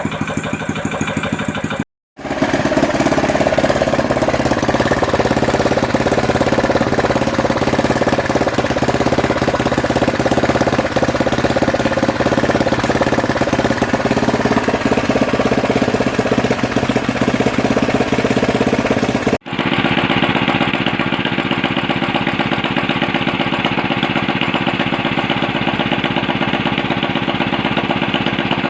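Ketinting longtail boat engine running loud and steady. The sound cuts out briefly twice, and after the second break the engine sounds duller and less bright.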